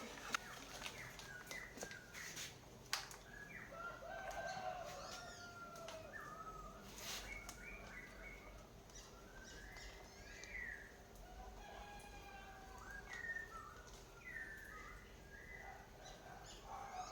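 Birds chirping and calling in many short, quick notes, faint, with a few sharp clicks.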